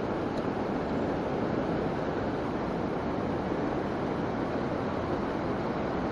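Steady rushing of a fast hill stream, an even unbroken water noise with no separate events.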